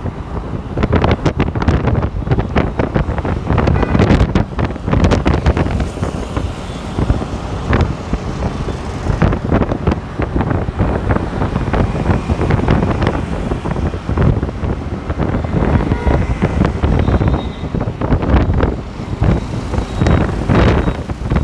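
Wind buffeting the microphone of a rider moving at road speed on a bike, gusty and uneven, with road traffic running underneath.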